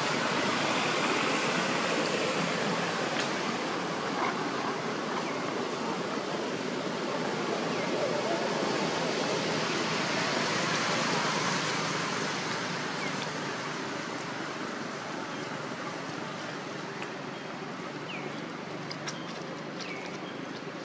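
Steady, even rushing noise, easing a little about halfway, with a few faint short chirps and ticks near the end.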